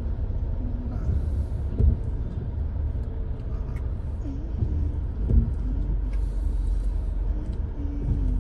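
Low, steady rumble of a vehicle moving through city traffic, heard from inside, with a couple of brief thumps.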